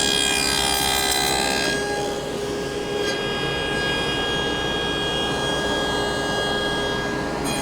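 Table saw with a dado stack running: a steady motor hum and whine with several held tones.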